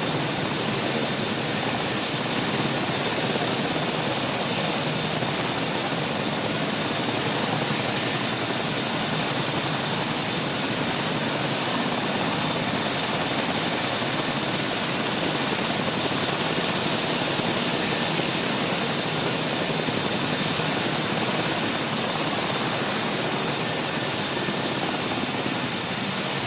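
Presidential helicopter running on the ground with its main rotor turning: a steady rush of engine and rotor noise with a constant high whine above it.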